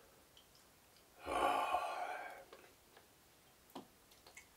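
A man's long breathy sigh about a second in, followed by a small click near the end.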